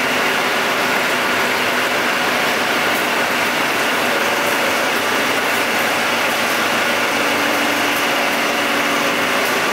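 Yuchai diesel engine of a 200 kW generator set running at a steady speed.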